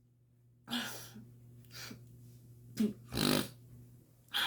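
A woman's short, noisy breaths and nose sounds during a rhinitis sneezing fit: four brief bursts, the loudest about three seconds in.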